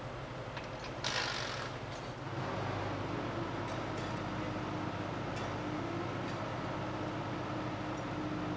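Construction machinery running steadily at level-crossing demolition work, with a short hiss about a second in and the engine noise growing louder about two seconds in.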